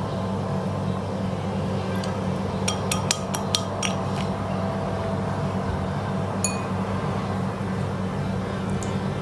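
Light clicks and clinks of crockery and toothpicks being handled while potato-slice and chicken parcels are assembled: a quick run of sharp clicks around three seconds in and a single ringing clink about six and a half seconds in, over a steady low hum.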